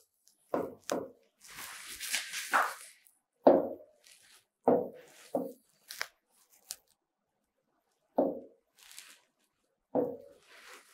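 Stylus writing on an interactive display screen: a scratchy stroke about a second long early on, then a string of short soft taps and rubs as the pen tip meets the screen.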